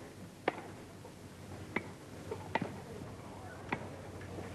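Tennis rally: the ball struck back and forth by rackets, a sharp knock about once a second, five in all, over a faint steady hiss.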